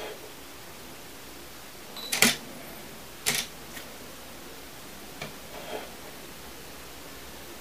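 Canon DSLR taking a picture: a short high beep, then a loud shutter clack about two seconds in, and another sharp click about a second later.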